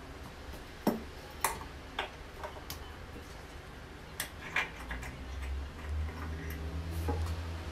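Sharp, irregular metal clicks and taps as bolts and parts are fitted into the steel frame of an adjustable incline weight bench by hand. A low rumble rises under them in the second half.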